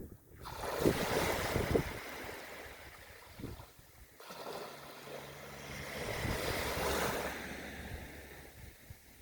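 Waves breaking and washing up the beach in two swells, one just after the start and another about halfway through, each fading away. Wind buffets the microphone during the first couple of seconds.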